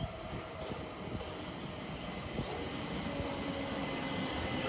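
Class 377 Electrostar electric multiple unit approaching, heard as a steady electric whine with a few faint held high tones, growing gradually louder.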